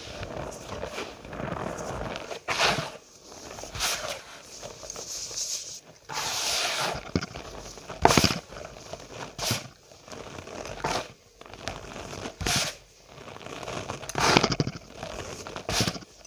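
Cornstarch powder being squeezed and crushed, a run of squeaky crunches with sharper crunches every second or two.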